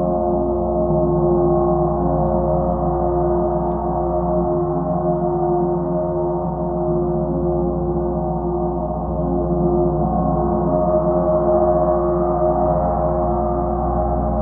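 Large Chinese chau-style gong played with two felt mallets in a continuous soft roll. It gives a sustained wash of many overlapping tones that swells gently and never dies away, with no single strike standing out.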